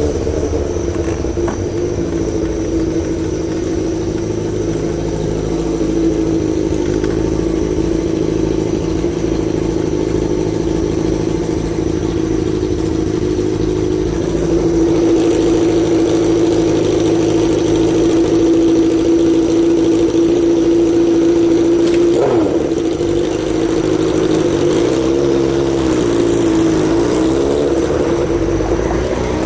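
Inside a 1997 Mitsubishi Eclipse turbo on the move: a steady engine and road drone in the cabin. About two-thirds of the way through, a brief sweep falls in pitch, and the engine note then wavers up and down.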